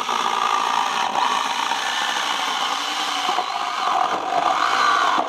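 Small battery-powered electric chainsaw running steadily while its chain cuts into a wooden plank, growing a little louder near the end. The chain is dull and worn, so it cuts slowly.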